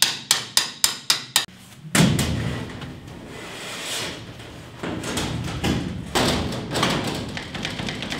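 A quick run of sharp metal knocks, about five a second, stops about a second and a half in. Then a thud and a long spell of low, wobbly rumbling as a large sheet of steel is flexed and pressed against the side of the bus.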